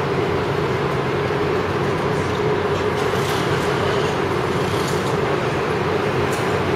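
Steady mechanical drone with a constant hum from a docked cruise ship's machinery, running evenly without change.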